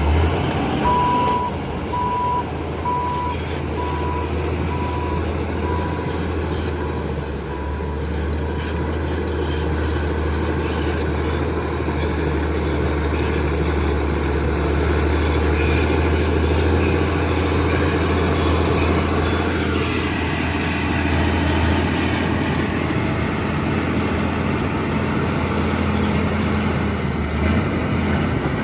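Heavy earthmoving machinery working, its diesel engine running steadily with a deep drone. A reversing alarm beeps about three times every two seconds over the first eight seconds or so, fainter after that.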